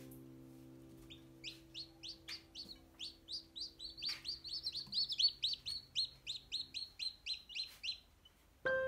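Newly hatched chicks peeping: a fast run of short, high, falling peeps, about four or five a second, that starts about a second in, grows louder and breaks off near the end.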